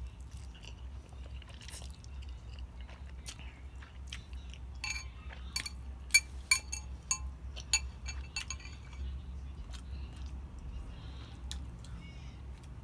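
Close-miked eating: chewing of noodles, with a run of sharp clinks of cutlery against a dish about five to eight seconds in, over a steady low hum.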